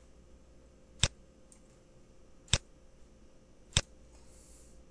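Three sharp computer mouse clicks, about a second and a half apart.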